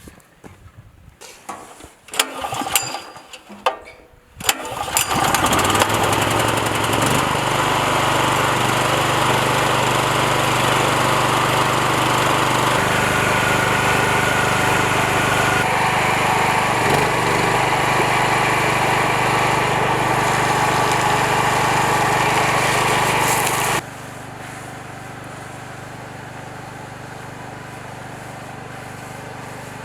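A few clicks and knocks, then the rebuilt generator's engine starts and runs steadily at an even speed, on a test run after its restoration. With about six seconds left it abruptly becomes much quieter but keeps running.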